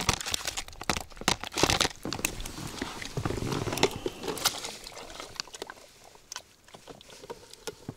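Irregular clicks, knocks and crunching rustles, dense at first and thinning out toward the end.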